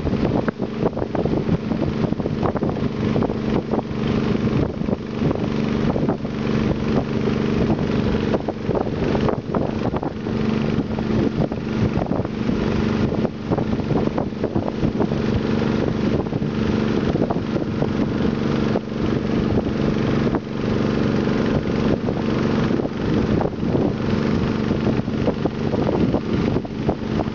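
Engine of a narrow longtail river boat running steadily under way, an even hum, with wind gusting on the microphone.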